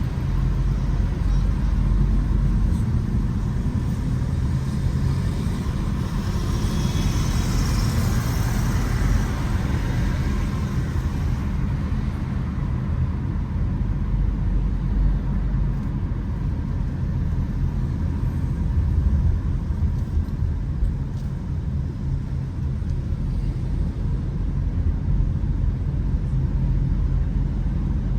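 Car driving on city streets: a steady low rumble of road and engine noise. About six seconds in, a hissing rush of traffic swells and fades away by about eleven seconds.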